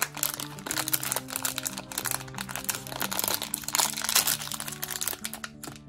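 Foil blind-box bag crinkling and crackling as hands tear it open, stopping near the end. Background music with held notes runs underneath.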